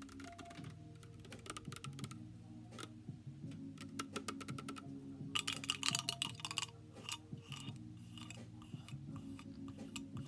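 Long fingernails tapping and scratching on an aluminium drink can, a string of sharp clicks, with a denser run of scratching about five to seven seconds in.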